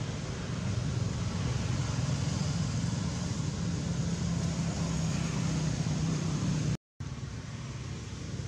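Steady low rumble and hiss of background motor traffic, cut off for a split second near the end.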